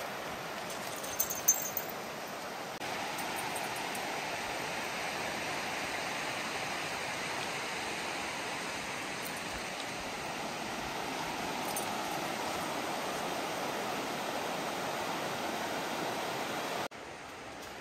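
Stillaguamish River flowing, a steady rush of water. Two short sharp clicks about a second in. The rush gets louder about three seconds in and drops off abruptly near the end.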